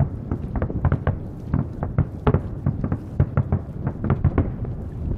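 Aerial fireworks shells bursting: a rapid, irregular string of bangs and pops, several a second.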